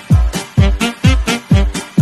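Background music with a steady beat: a deep kick drum about twice a second, with sharp bright percussion hits between.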